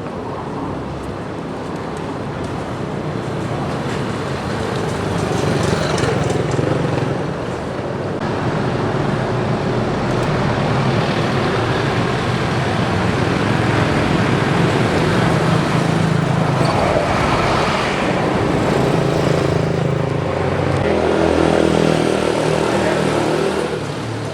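Busy street traffic: car and motorcycle engines passing close by, swelling and fading as vehicles go past, loudest through the middle and easing off near the end.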